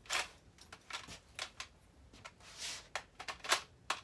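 Handling noise from a toy blaster: a run of sharp clicks and a couple of short rustles as it is handled and worked without batteries.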